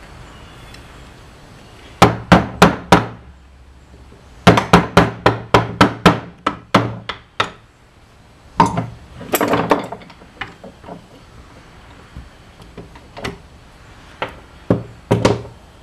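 Hammer tapping a screwdriver against a steel shaft on a Tecumseh Peerless lawn tractor transaxle: sharp metal taps in bursts. Four quick taps come about two seconds in, then a longer run of about ten, a short cluster, and scattered single taps near the end.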